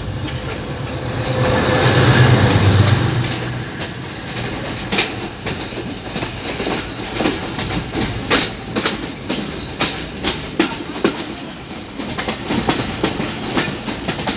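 A Pakistan Railways GE U20C diesel-electric locomotive passes close by. Its engine hum swells and fades about two seconds in. Then the wheels of the coaches behind it clack irregularly over the rail joints, over a steady rolling rumble.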